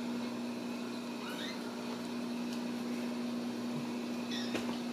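Steady low hum of room background, with a faint short rising squeak about a second and a half in.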